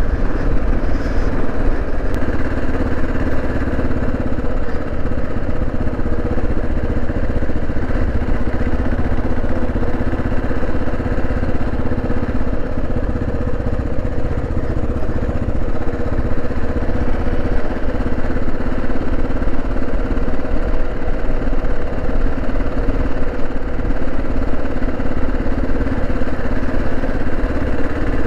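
Single-cylinder engine of a Kawasaki KLR 650 motorcycle running at a steady, even note while being ridden, with no marked revving.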